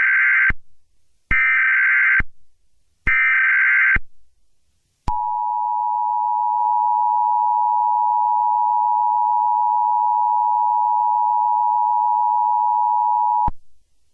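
Emergency Alert System (EAS) SAME header: three identical bursts of screeching digital data tones, each about a second long. These are followed by the two-tone EAS attention signal, held steady for about eight seconds and then cut off suddenly.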